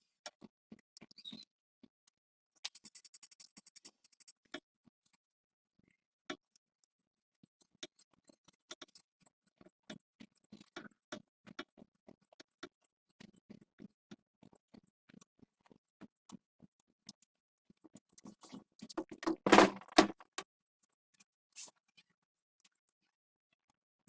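Scattered small clicks and taps of tools and metal parts being handled. A short scratchy rasp comes a few seconds in, and a louder clatter of about a second comes near the end.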